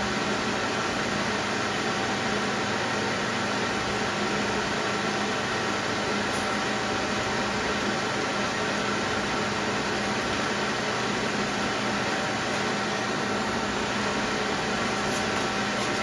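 Small electric fan inside a foam-cooler ice air conditioner, running steadily and blowing air out through the hole in the cooler: an even whir with a faint steady hum.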